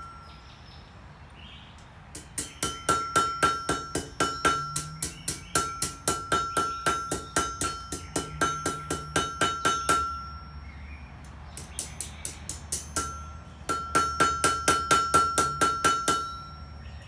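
Hammer blows on an anvil at about four a second, each with a bright metallic ring, as a blacksmith draws out the end of a mild-steel S-hook to thin it for a curl. The hammering comes in runs, starting about two seconds in and stopping briefly twice.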